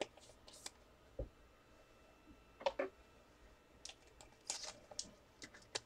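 Faint, scattered light clicks and rustles of trading cards being handled, a little louder about a third of the way in and again past the middle.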